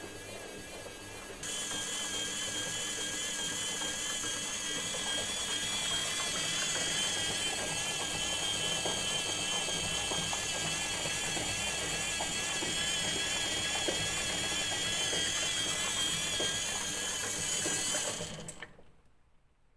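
Samsung 7 kg front-loading washing machine's brushed motor, running on newly replaced carbon brushes and turning the drum through its belt: a steady whine over mechanical whirring. It steps up in loudness about a second and a half in and dies away near the end.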